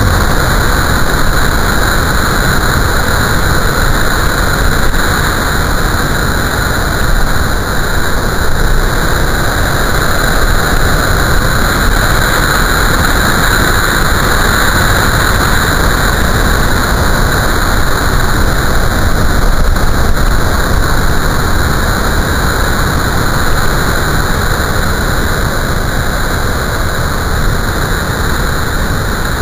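Large storm swell breaking heavily into whitewater, a loud steady roar of surf.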